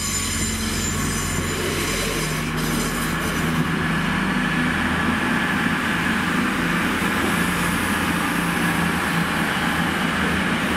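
CrossCountry Voyager diesel-electric multiple unit pulling out, its underfloor diesel engines running with a steady low hum.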